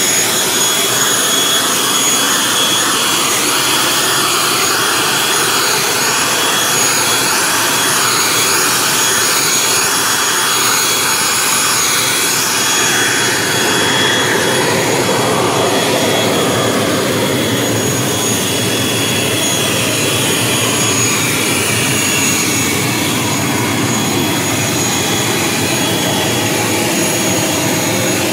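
Aircraft turbine engine running on the apron near a parked turboprop airliner: a loud, steady rushing noise with a thin, high, steady whine over it.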